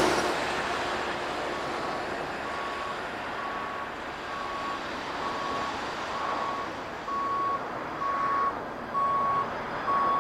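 Hi-rail pickup truck backing along the track, its reversing alarm beeping at one pitch about once every 0.7 s and growing louder as it approaches. The rumble of the passing track machine dies away at the start.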